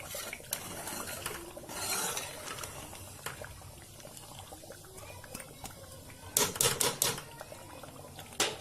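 Thick korma gravy simmering in a pot over a low gas flame, with soft bubbling and small pops. A metal spoon knocks and scrapes against the pot in a quick cluster of strikes about six to seven seconds in, and once more near the end.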